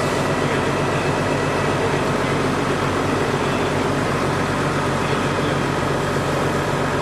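Fire engine running steadily at the scene, a constant low engine hum under an even hiss, with hose water spraying.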